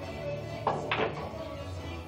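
Background music playing, with two sharp clicks of pool balls striking about a quarter second apart, near the middle.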